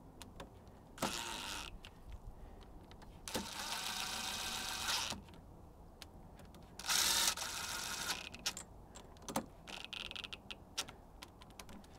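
Cordless impact driver running down the bolts on a Bosch VE diesel injection pump, in several short bursts of motor whine. The longest burst lasts about two seconds, and the bolts are being taken down evenly in turn.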